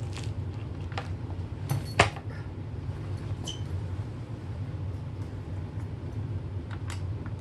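Scattered clicks and knocks from a Kirby upright vacuum's emptor door and fill tube being worked into a tight fit by hand, with one sharp clack about two seconds in. A steady low hum runs underneath.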